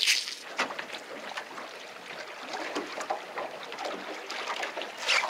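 Water lapping against the hull of a drifting fishing boat, with a few sharp clicks of handled gear near the start and near the end.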